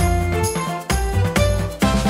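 Background music: struck, ringing notes over a deep bass, hitting about twice a second, then switching to a faster beat near the end.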